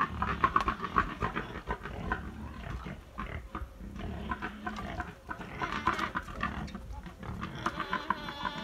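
Pigs grunting in several short bouts of rapid grunts.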